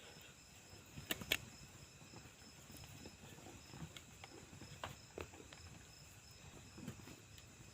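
Faint scattered clicks and knocks over a low background, with the two sharpest close together about a second in.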